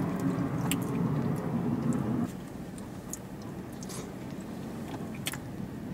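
Someone eating an acai bowl with a spoon: chewing and a few light spoon clicks, over the steady low hum of a car cabin that drops in level about two seconds in.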